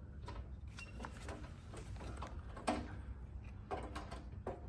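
Light clicks and knocks of metal flush bolt parts being handled and fitted together, a few scattered taps with the sharpest about two and a half seconds in.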